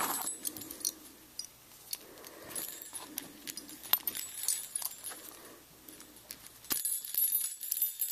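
Small jingle bells on a leather dog collar jingling in bursts as the collar is handled, with sharp metal clicks from the buckle and ring hardware.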